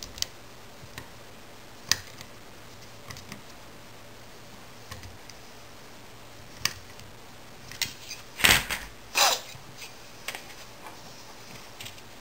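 Hands handling and clamping a small aluminium wire-bending jig: sparse light clicks and taps, with two short, louder noises a little after eight and nine seconds in.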